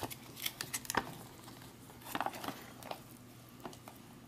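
The foil-laminate food pouch rustles and crinkles as it is handled and folded back, and a plastic spoon squishes and scrapes through rehydrated spaghetti in meat sauce. The sound comes as scattered short rustles and clicks, a cluster in the first second and another just after two seconds.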